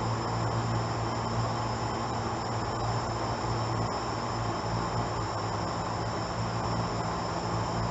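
Air conditioner running steadily: an even low hum under rushing air, with a thin, steady high-pitched whine on top.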